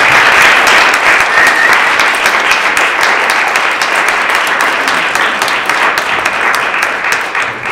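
Audience and panelists applauding, a dense crowd of hand claps that is loudest at the start and slowly thins out, with single claps standing out more near the end.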